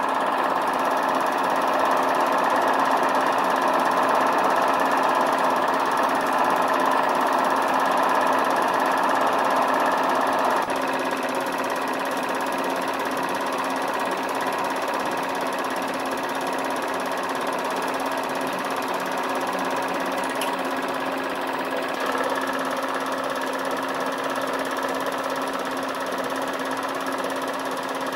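A machine running steadily with a fast mechanical rattle and a constant hum; its tone shifts abruptly about ten seconds in and again about twenty-two seconds in.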